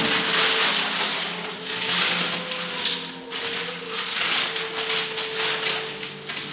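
Paper sticky notes rustling and crumpling as they are swept together across a tile floor and scrunched by hand, in uneven surges. A steady low hum of a few held tones runs underneath.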